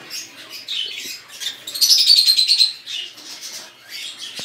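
Lovebirds calling in short high chirps, with a loud rapid buzzing chatter about two seconds in.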